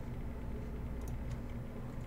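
Steady low hum of room background noise, with a couple of faint clicks a little after a second in.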